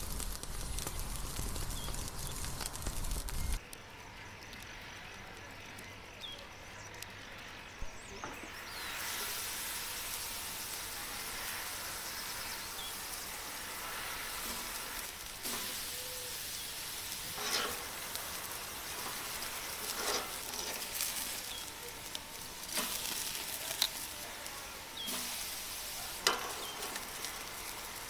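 Meat sizzling on a barbecue grill: a steady hiss with scattered clicks and crackles. A low rumble in the first few seconds cuts off suddenly.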